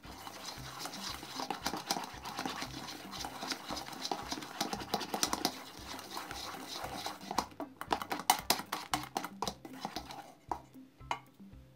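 A whisk beating a thick, foamy toothpaste-and-shower-gel slime mixture in a bowl: fast, wet squelching and clicking strokes. They are loudest in the last few seconds and stop shortly before the end.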